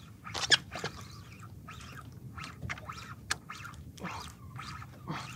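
A spinning reel working against a hooked fish: irregular short rasps and sharp clicks from the drag and reel as line is given and taken back.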